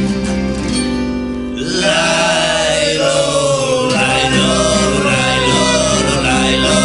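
A song playing: strummed guitar chords, then singing comes in about a second and a half in and carries on over the accompaniment.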